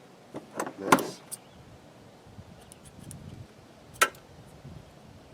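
Sharp clicks and snaps of hand tools cutting away the outer coating of a two-wire light cable. A quick cluster comes in the first second and a half, the loudest about a second in, then a single sharp snap about four seconds in.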